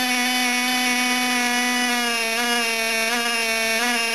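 Small electric air compressor running with a steady buzzing whine, driving air into the pneumatic cylinders of model submarine periscopes. Its pitch dips slightly a few times as the load changes.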